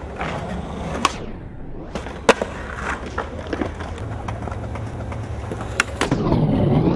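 Skateboard wheels rolling over concrete, with a few sharp clacks of boards popping and landing. Near the end comes a louder, rougher grind as the trucks slide along a concrete ledge.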